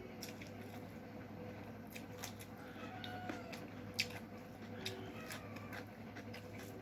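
Wet clicking and smacking mouth sounds of someone eating chicken curry and rice with the hands, irregular and sharpest about four seconds in, over a steady low hum.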